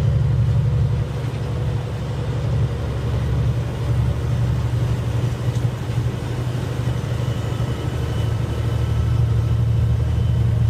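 Semi truck's diesel engine running steadily on the road, a low drone with road noise that swells and eases slightly.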